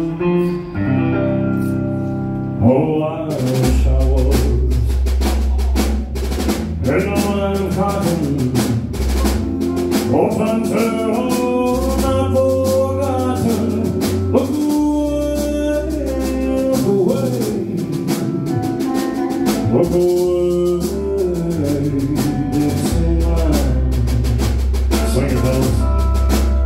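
Live rock band playing with a male singer: sustained chords at first, then drums and bass come in about three seconds in and the singer carries the melody over a steady beat.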